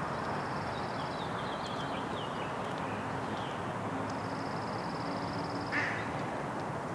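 Crow making short, soft hiccup-like calls, the loudest a single sharp one about six seconds in. The uploader takes them for hiccups but is not sure.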